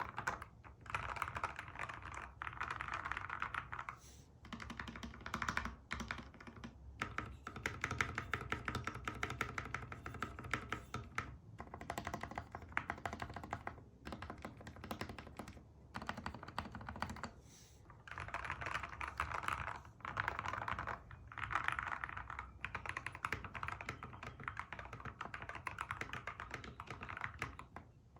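Ractous RTK61BP 61-key mechanical keyboard, its switches and stabilizers lubricated, being typed on in quick runs of keystrokes broken by short pauses.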